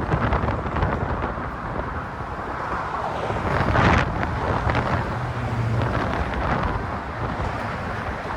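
Road traffic passing close by with wind buffeting the microphone; one vehicle swells to a loud whoosh about four seconds in, followed briefly by a low engine hum.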